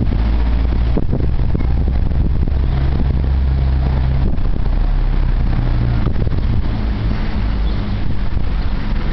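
Gusts of windstorm Xynthia buffeting the camera microphone: a loud, steady low rumble that swells and eases, heaviest in the first half.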